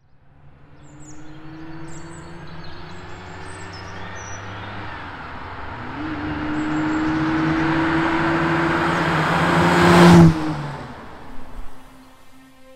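Ferrari 365 GTB/4 Daytona's 4.4-litre V12, fed by six twin-choke Weber carburettors, accelerating toward and past. The engine note climbs steadily and is loudest about ten seconds in as the car passes, then drops in pitch and fades.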